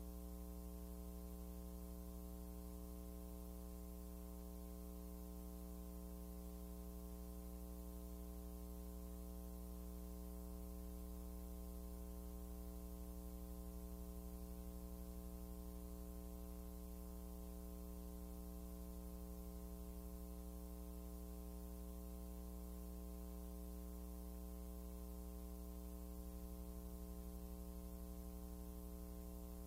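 Steady low electrical hum with a stack of overtones above it, unchanging, with nothing else heard: mains hum on an otherwise silent film soundtrack.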